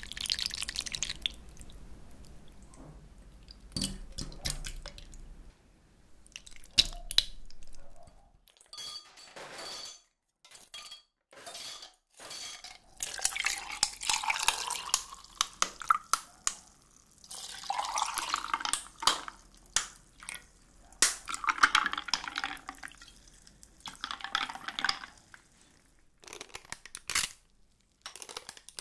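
Syrup dripping and splashing off tapioca pearls in a metal strainer over a glass bowl, then scattered sharp clinks and knocks. Chocolate milk is then poured over ice into glass beakers several times, in pours of one to three seconds.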